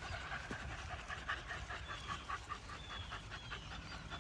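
Puppies panting: a steady run of short breaths, about four or five a second.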